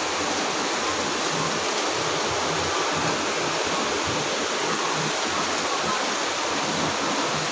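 Very heavy rain pouring down: a steady, even rushing hiss with no breaks.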